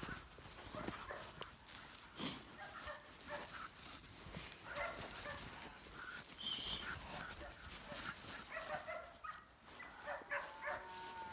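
A puppy yipping and barking in short, scattered calls, with a drawn-out whine near the end.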